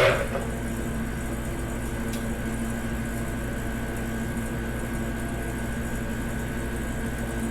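Steady, even machine hum with a few fixed tones, like a motor or fan running in the shop, with a short clatter right at the start.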